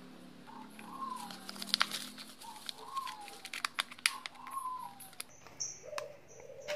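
Hands handling a hard plastic flashlight case and bubble wrap, with crinkling and sharp clicks and knocks. A bird calls several times with short falling whistled notes.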